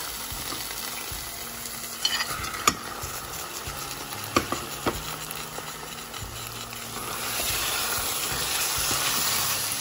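Tomato stew with fish frying in an olive-oiled pan, a steady sizzle that grows louder about seven seconds in. A few sharp knocks come as the crab pieces go in and are stirred with a spoon.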